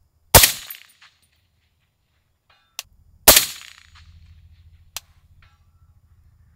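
Two shots from a suppressed .308 PSA PA-10 semi-automatic AR-10 rifle, about three seconds apart, each a sharp crack with a short echoing tail.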